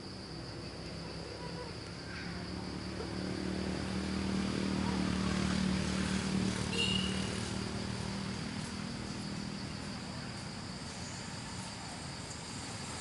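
Steady high-pitched drone of insects in the jungle canopy, with a motor engine hum that swells in the middle and fades again, like a motorbike passing by. A short high chirp sounds about seven seconds in.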